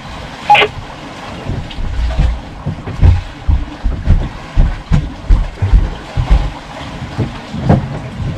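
Wind buffeting the microphone on a boat at sea: irregular low rumbling thumps that come thicker and louder in the second half.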